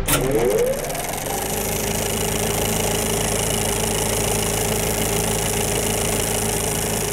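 Film projector sound effect for a logo sting: a sharp hit, then a rising whir as the mechanism spins up, settling into a steady mechanical running sound.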